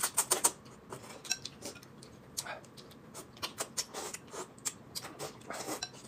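Two people slurping hot and sour glass noodles (suanlafen) from bowls in many short wet sucking bursts, loudest about half a second in, with light clicks of chopsticks against ceramic bowls.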